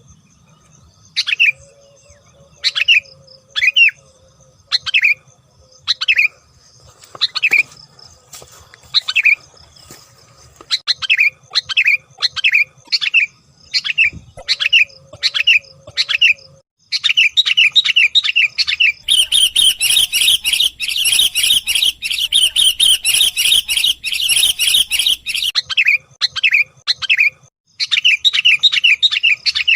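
Sooty-headed bulbul (kutilang) lure calls: short sharp chirps repeated about once a second, quickening to a rapid run about 17 s in, then a dense, louder chattering stretch from about 19 to 25 s before the quick chirps resume.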